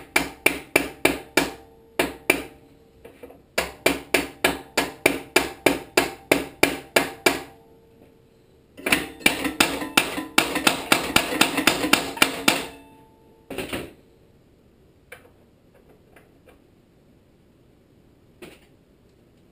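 Brass-headed hammer tapping a pulley farther onto the shaft of a Tecumseh HSK70 snowblower engine: runs of quick, ringing metal taps, about four a second, with a short pause, then a faster run, and a couple of last knocks before it goes quiet apart from faint clicks.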